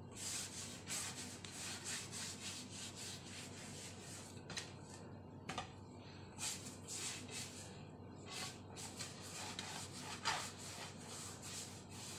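Hands kneading and rubbing a soft flour dough against a floured earthenware bowl: an irregular run of soft brushing, scraping strokes, one or two a second.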